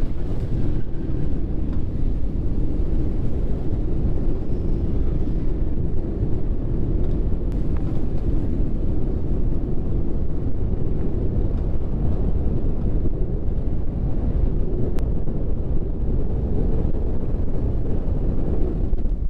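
Steady low rumble of a 4x4 truck driving off-road, with wind buffeting the microphone.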